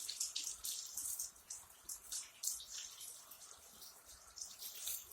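Hands being washed under a running faucet, the water splashing unevenly as sticky slime is scrubbed off the skin.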